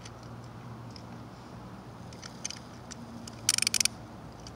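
Plastic Beyblade launcher clicking as a ripcord is threaded into it: a few light ticks, then a quick burst of sharp rattling clicks about three and a half seconds in.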